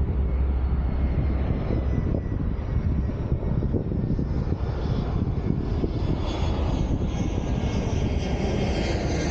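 Airliner flying in low overhead, its engine noise growing louder as it approaches, with a high whine building in the second half.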